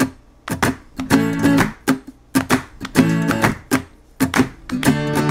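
Jingle music: an acoustic guitar strumming chords in short, choppy strokes with brief gaps between them.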